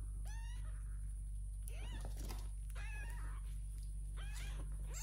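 A young kitten meowing, about five high calls a second or so apart, each rising then falling in pitch. A steady low hum sits underneath.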